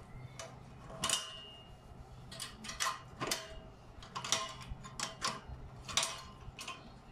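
Spanner tightening a nut on a bolt through a steel clamp: irregular metallic clicks and clinks, about one every second, some ringing briefly.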